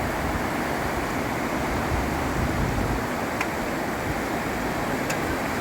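Swollen mountain river in flood: a steady, unbroken rush of fast-moving water.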